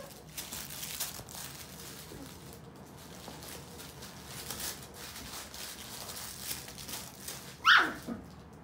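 Miniature poodle puppies scuffling and rustling on a fabric dog bed among plush toys, with one loud, high yelp falling steeply in pitch near the end.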